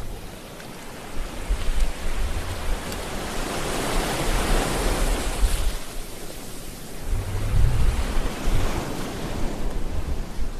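Ocean surf: waves breaking and washing up a sandy beach, a rushing hiss that swells and fades about halfway through, over a low rumble.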